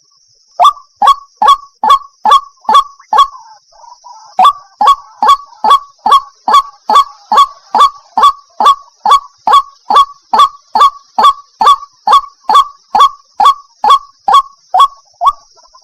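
White-breasted waterhen (ruak-ruak) calling: a rapid, even series of loud, sharp notes, about two a second, with a brief break about three seconds in.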